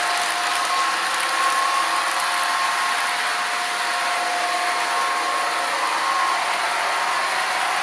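Sound decoder in an HO-scale F40PH-2D model locomotive playing a steady running diesel prime mover sound through its small speaker, with a thin whine.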